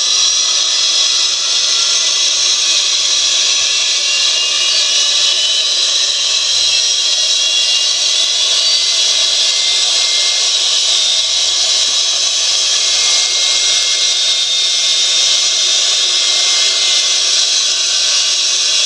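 Recorded DC-9 jet engine sound played from an MP3 player through small two-and-a-half-inch PC speakers inside a model airliner's fuselage: a steady whine over hiss, with a faint low hum coming in about eleven seconds in.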